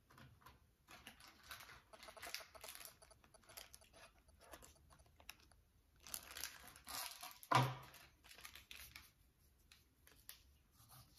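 Cardboard box of paprika being handled and shaken to sprinkle the spice: faint, irregular clicks and rustles, with one louder knock about seven and a half seconds in.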